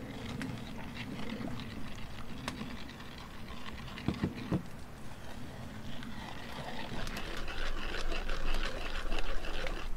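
Wooden spoon stirring and scraping a spice mixture in a wooden bowl: light taps and scrapes that get busier in the last few seconds, with two short low sounds about four seconds in.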